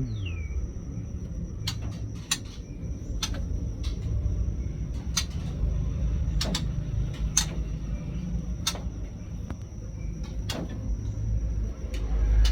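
Scattered sharp clicks and knocks, about a dozen at irregular intervals, over a steady low rumble and a faint continuous high whine.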